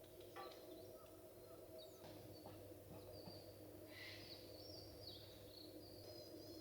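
Faint bird calls: short high chirps and whistles, the strongest about four seconds in, over a steady low hum.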